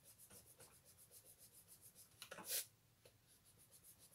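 White eraser rubbing back and forth over mixed-media journal paper, erasing pencil guidelines: faint, even strokes about four or five a second, with one louder stroke about two and a half seconds in.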